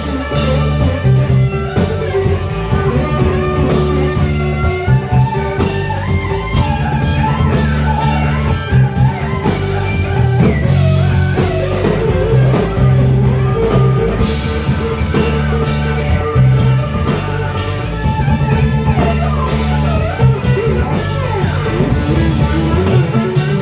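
Live country-rock band playing an instrumental break: a guitar lead line with gliding, bending notes over bass and drum kit.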